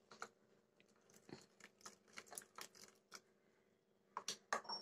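Faint, scattered light clicks of a steel spoon against a bowl as it stirs thick porridge, with a few louder taps near the end.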